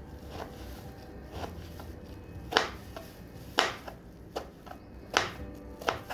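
Kitchen knife chopping food on a board: a handful of sharp, uneven strikes, spaced about a second apart and loudest in the second half.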